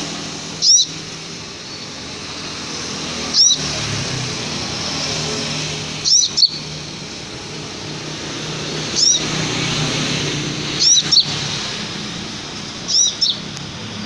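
Caged sunbird (the Indonesian 'kolibri') giving short, sharp, high-pitched chirps every two to three seconds, some in quick pairs.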